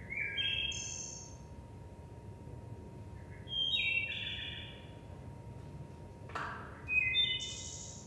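Wood thrush song played back over loudspeakers: three phrases a few seconds apart, each a run of clear stepped flute-like notes ending in a higher trill. A single sharp knock about six seconds in.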